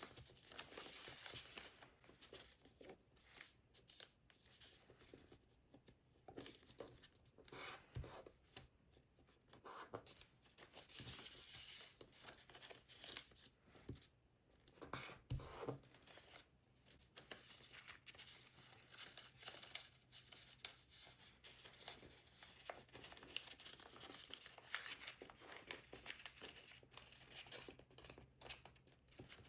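Paper being folded and creased by hand: faint rustling and crinkling that comes and goes.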